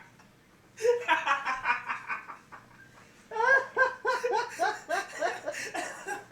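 Young men laughing hard and uncontrollably: a bout of laughter starts about a second in, then a run of quick, even ha-ha pulses, each falling in pitch.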